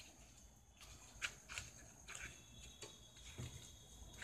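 Faint clicks and light scraping of hands handling a laptop LCD panel and its flex cable connector, with a sharp click about a second in and a few softer taps after.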